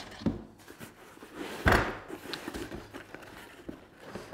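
Cardboard packaging handled on a plywood workbench: a soft thud near the start, then one louder thump about a second and a half in, followed by faint rustling as the cardboard box flaps are opened.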